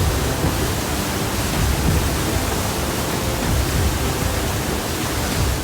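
Loud, steady rushing noise with a heavy, churning low rumble.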